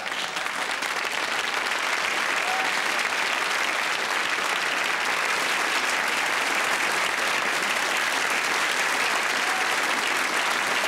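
Studio audience applauding, swelling over the first second or so and then holding steady.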